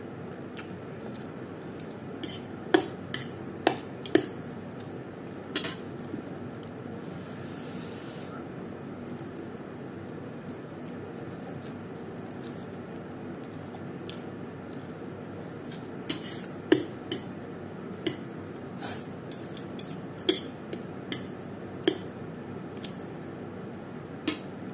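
Metal fork clinking and scraping against a plate while lifting fried noodles, in two clusters of sharp clinks, the first a few seconds in and the second in the latter half, with wet noodle-eating sounds between, over a steady background noise.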